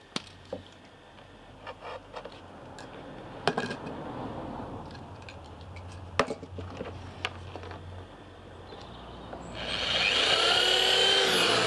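Scattered knocks and scrapes of plywood boards being handled on a workbench, then, about ten seconds in, a corded electric drill boring into plywood, its pitch rising as it speeds up and falling as it slows.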